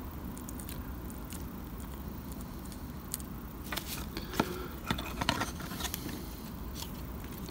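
Faint rustling of kitchen towel and a few light clicks and taps as a plasticard model building is wiped clean of glue and handled on a cutting mat.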